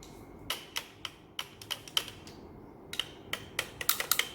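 Light plastic clicks and taps from children's toy tools being handled: about a dozen irregular clicks, coming faster near the end.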